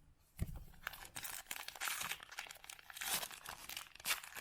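Plastic wrapper of a baseball card pack crinkling as it is handled and torn open, in irregular rustling bursts, with a soft thump about half a second in.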